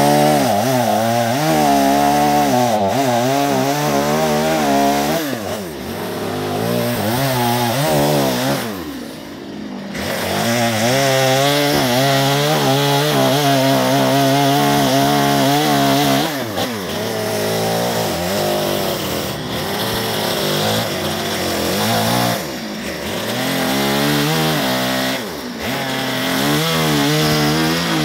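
Two-stroke chainsaw revving and cutting into a western red cedar log. The engine pitch climbs and sags under load and drops back briefly about five times between cuts.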